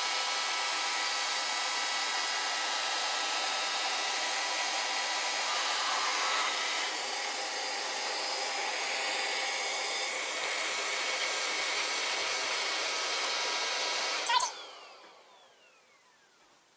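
Xiaomi robot vacuum running with a steady fan whir and several high whining tones. About fourteen seconds in, it stops with a click and the motor winds down with a falling whine.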